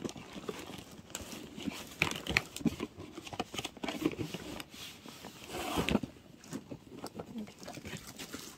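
Rummaging through cluttered crafting supplies: plastic bags crinkling and rustling, with irregular knocks and clicks of objects being moved. It is loudest about two seconds in and again near six seconds.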